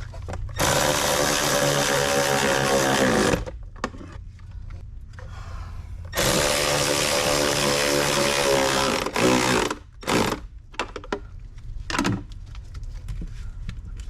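A power drill-driver runs in two bursts of about three seconds each, with a steady motor whine, followed by a few short clicks and knocks.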